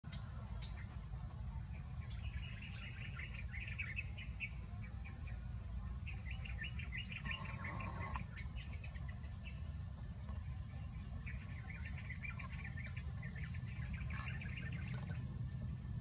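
Steady high-pitched drone of crickets, with several bursts of rapid bird chirping. A brief splash-like rush comes about seven seconds in, as a bathing bird splashes in a shallow puddle.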